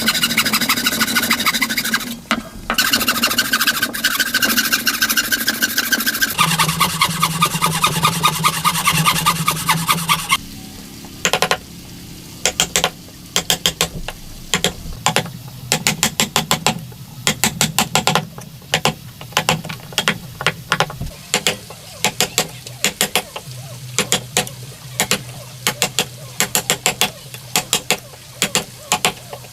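Woodworking tool sounds: a power tool runs with a steady pitched whine that shifts to a lower, different pitch about six seconds in and stops after about ten seconds. It is followed by a long run of sharp, irregular taps and knocks.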